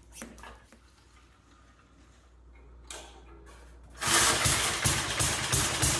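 A few light clicks, then about four seconds in the 3.5 hp Briggs & Stratton engine of a 1976 Gilson snowblower starts suddenly and runs loudly.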